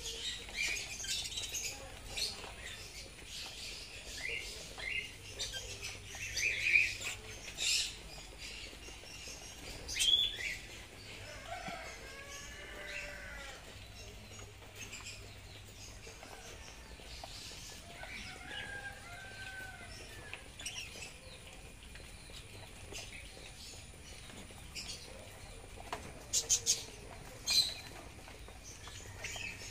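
Young helicopter budgerigars chirping and chattering, a busy scatter of short high calls with a few louder sharp bursts and some lower sliding calls in between.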